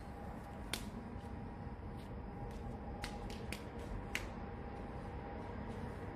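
Flip-flop footsteps on asphalt: a handful of light, sharp slaps spaced irregularly, stopping about four seconds in, over a faint steady hum.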